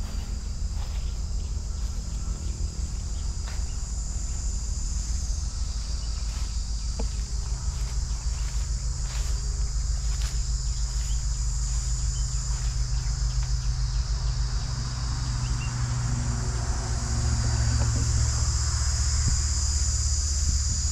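Small motorcycle engine running as it is ridden, a low steady drone that grows louder near the end. Over it is a steady high-pitched buzz of insects.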